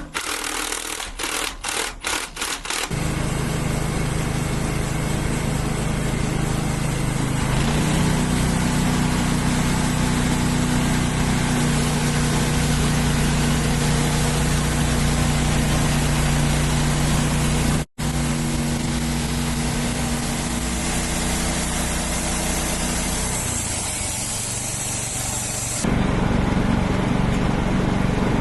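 Woodmizer sawmill's engine starting: a few quick cranking pulses, then it catches after about three seconds and runs steadily. It picks up speed about eight seconds in, cuts out for an instant near eighteen seconds, and changes pitch again near the end.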